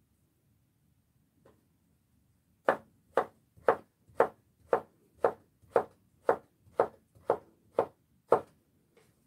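Kitchen knife chopping on a cutting board: about a dozen sharp, even strokes at roughly two a second, with a single faint tap before them.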